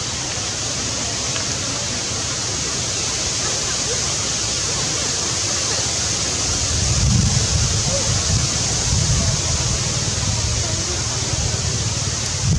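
Steady outdoor hiss, with wind buffeting the microphone as a fluctuating low rumble from about halfway through.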